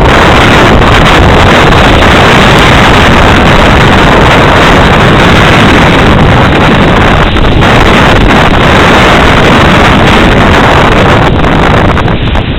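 Strong storm wind from Hurricane Sandy blasting across the microphone: a loud, steady rumbling rush with no other sound standing out.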